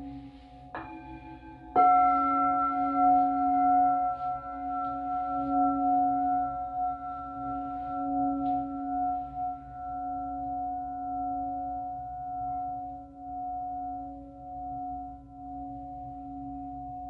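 Singing bowls struck and left to ring: a light strike about a second in, then a louder one a moment later. Each strike joins several long, steady tones over a lower hum still ringing from before. The tones pulse slightly as they slowly fade.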